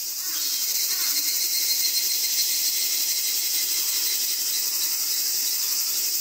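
A dense, steady, high-pitched chorus of insects, fading in at the start.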